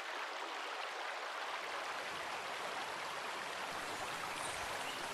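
Steady rain falling: an even hiss with no separate drops or other events.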